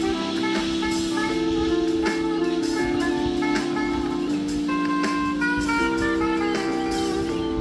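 Background jazz music: held chords and a melody over a drum kit, with guitar or horn.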